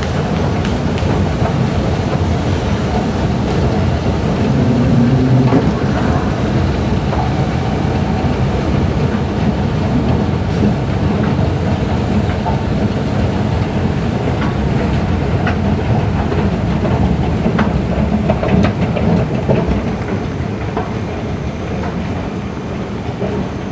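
Metro station escalator running: a steady low rumble with scattered light clicks from the moving steps, easing off slightly in the last few seconds.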